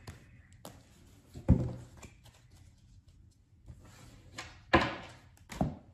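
A tarot deck being handled as cards are pulled: a handful of sharp taps and knocks of cards against the table, the loudest about a second and a half in and again near the end.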